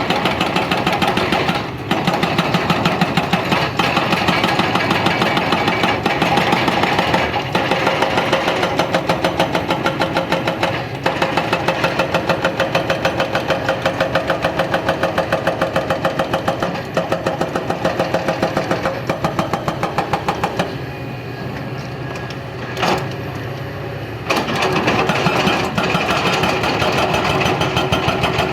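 Excavator running with a fast, even pounding of about four beats a second, which drops away for about three seconds near the end before resuming.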